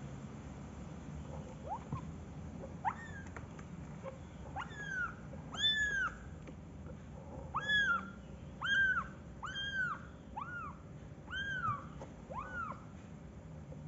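Young kitten mewing repeatedly: about ten short, high mews, each rising and falling in pitch, starting about two seconds in and coming every second or so.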